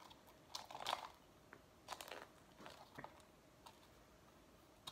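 Faint crinkling of a paper muffin case being pressed and glued onto a toilet-paper roll, as several short rustles in the first three seconds.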